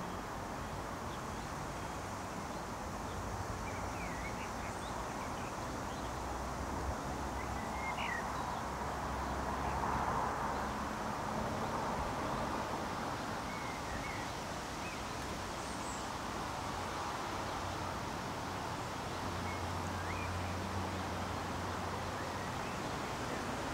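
Steady outdoor background noise with a low hum underneath and a few faint, short bird chirps scattered through it.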